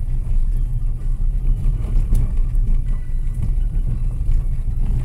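Car driving slowly on a dirt road, heard from inside the cabin: a steady low rumble of engine and tyres on the rough surface, with a few faint knocks.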